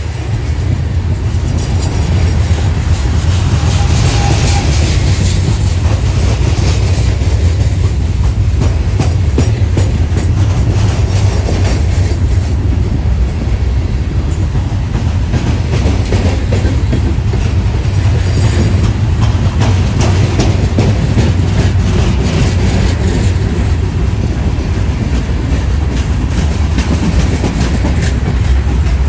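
Providence & Worcester freight train's cars rolling by, wheels clattering steadily over rail joints under a heavy low rumble.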